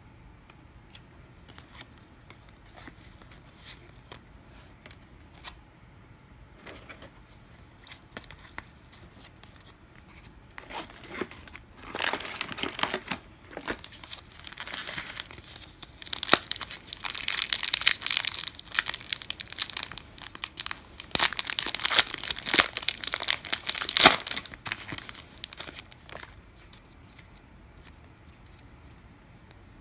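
A trading-card pack wrapper being torn open and crinkled: a run of loud crackling from about eleven seconds in, lasting about fifteen seconds, after scattered light ticks.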